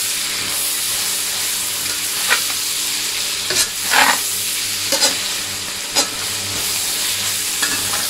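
Meat and wood ear fungus topping sizzling in soy sauce in a stainless steel pan, with a metal spatula scraping and turning it about six times at uneven spacing. The topping is being fried down until fragrant, close to the point of catching and burning.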